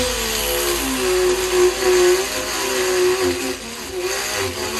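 Angle grinder with a homemade tire-cutting blade running while it cuts into a steel-belted tire; the motor's whine wavers up and down in pitch as the blade bites, over a steady gritty cutting noise.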